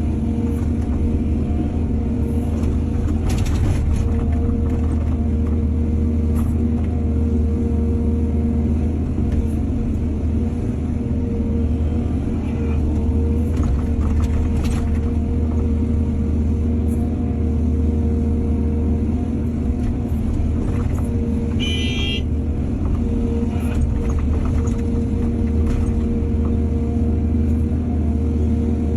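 Hydraulic excavator's diesel engine running steadily under load, with a constant hum over the low rumble. A few short clatters, and a brief high chirp about three-quarters of the way through.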